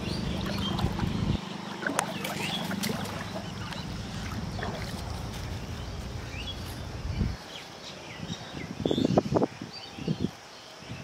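Outdoor pond-side ambience: small birds chirping, over a low rumble that stops about seven seconds in. Near the end come a few sharp knocks and rustles of fish being handled in the grass at the water's edge.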